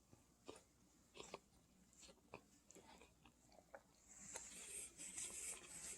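Near silence: room tone with a few faint scattered clicks, and soft faint rustling near the end.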